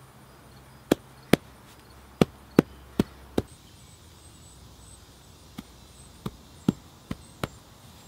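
Hands patting soil and sod down by hand: two runs of short, sharp pats, six in the first three and a half seconds and five more in the second half, about two to three a second.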